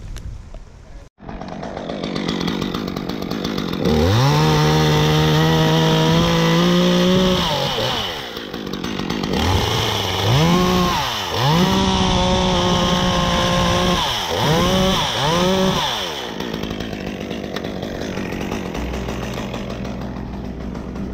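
Stihl top-handle chainsaw's two-stroke engine revving to full throttle and cutting eucalyptus wood in two long runs of a few seconds each. It gives two short throttle blips, then drops back to idle.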